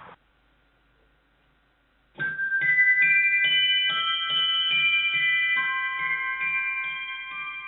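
Music: after a brief near-silent gap, bell-like keyboard notes start about two seconds in over a steady beat, then fade out near the end.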